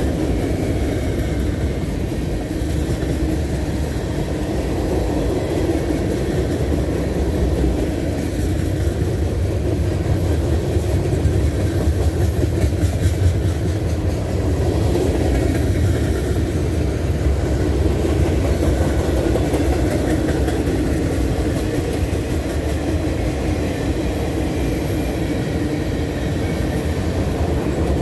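Freight cars of a Norfolk Southern train rolling past at close range: a steady rumble of steel wheels on the rails, swelling a little about halfway through.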